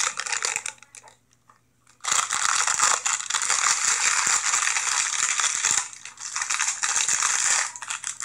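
Crinkling and rustling of a package being handled: a short burst at the start, then about six seconds of dense, continuous crackling that stops fairly abruptly near the end.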